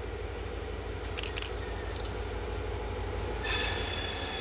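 1950s–60s CFL diesel locomotive approaching, its engine a steady low rumble. There are short high squeaks a little over a second in and at about two seconds, then a louder high-pitched wheel squeal about three and a half seconds in.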